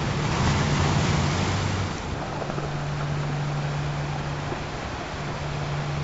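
Ocean surf washing steadily, with a wave swelling and breaking in the first two seconds. Under it run low steady tones, the program's frequency tones, which drop out and return.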